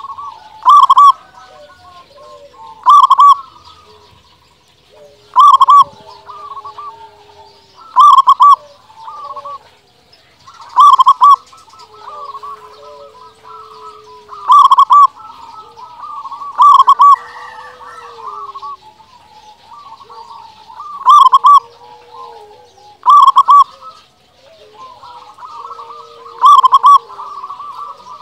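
A local zebra dove (perkutut) in full song, giving its cooing call over and over: a loud call about every two to three seconds, some ten in all. Fainter calls from other birds carry on between them.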